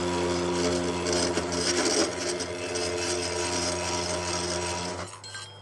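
Milling machine feeding a slitting saw through A2 tool steel in a climb cut: a harsh scraping grind over the steady hum of the machine. The cut is not going well, and the cutter may not suit the material. It stops suddenly about five seconds in.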